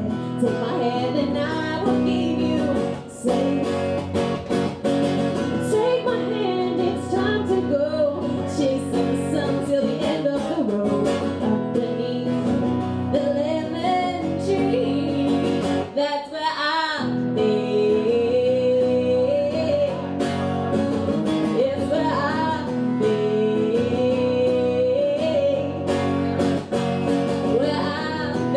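A woman singing a country-pop song live, accompanying herself on a strummed acoustic guitar, with a few long held notes in the second half.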